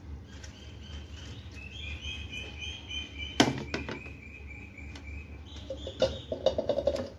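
Small birds chirping: a run of quick, high, repeated chirps through most of the stretch. A single sharp click comes about halfway, and a quick run of lower clicks near the end.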